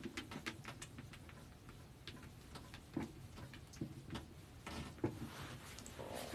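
Whiteboard eraser wiping across a whiteboard: faint rubbing with scattered light taps and clicks.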